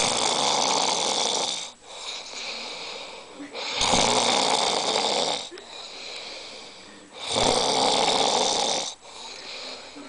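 A sleeping person snoring: three long, loud snores about every three and a half seconds, with quieter breathing between them.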